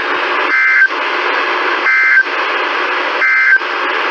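NOAA Weather Radio SAME end-of-message signal: three short two-tone data bursts, a little over a second apart, over steady radio static, closing a Required Weekly Test broadcast.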